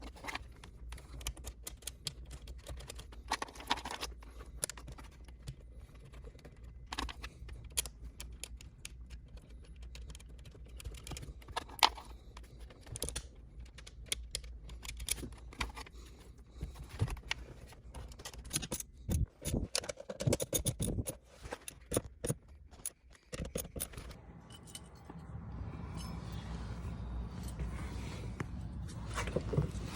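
Scattered clicks, taps and small metallic rattles of hand tools and parts being handled, over a low steady hum. A few heavier knocks come around two-thirds of the way through, and a steadier hiss comes in near the end.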